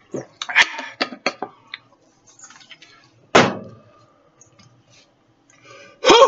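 A man's harsh gasps and coughing fits after gulping down a jar of hot sauce and vinegar: a quick run of sharp breaths in the first second and a half, one loud harsh cough-like burst about three seconds in, then a drawn-out voiced groan near the end.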